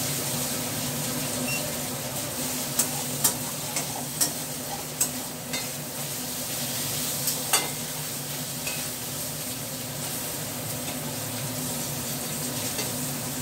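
Food sizzling in a small metal kadai on a gas burner while it is stirred, with several sharp clinks of the spatula against the pan.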